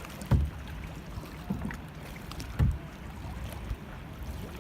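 Kayak paddle strokes in the water, a splash every second or two, the loudest near the start and about two and a half seconds in, over a steady low rumble of wind on the microphone.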